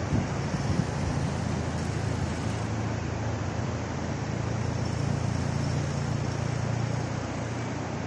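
Distant road traffic: the low rumble of a passing vehicle swells about four seconds in and eases off near the end, over a steady outdoor noise bed, with wind buffeting the microphone in the first second.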